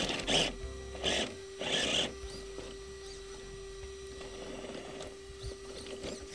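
Traxxas TRX-4 Sport RC crawler's electric motor and drivetrain whirring in three short bursts of throttle in the first two seconds while the truck stays put on a rock. A faint steady hum runs underneath.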